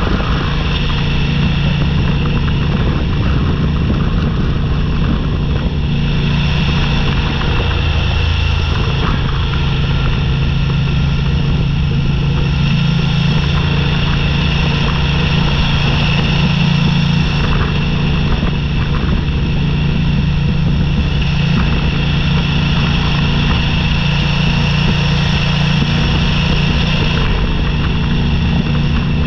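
Motorcycle engine running at a steady, even pace while riding, with tyre and wind noise from the gravel road.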